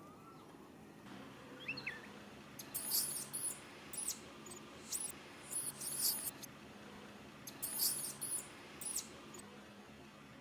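A baby monkey giving thin, very high-pitched squealing calls in short repeated bursts, about one a second, from about two and a half seconds in. They are contact or distress calls to its mother.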